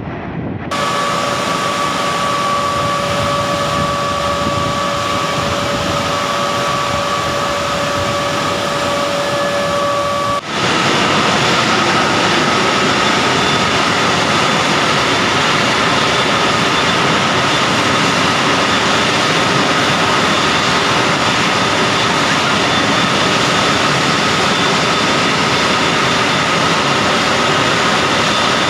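Steady loud roar of steam escaping from the power plant's exploded boiler, with steady high whistling tones over it. The sound dips for a moment at about ten seconds and comes back a little louder, with the whistles higher.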